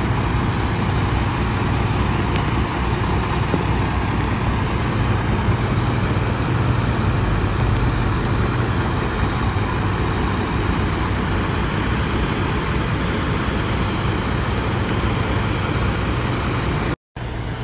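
Fire truck engines running, a steady low engine drone that does not change.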